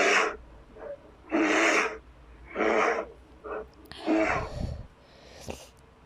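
Custom-made Godzilla creature sound effects: a run of short, rasping, pitched calls of about half a second each, roughly one a second. The fourth call has a deep rumble under it.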